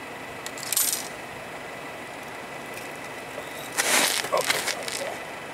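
Handling noise from an ice-fishing rod and reel being picked up and jigged: a brief rustle about a second in, then a louder cluster of rustling and clinking around four seconds in, over a steady hiss.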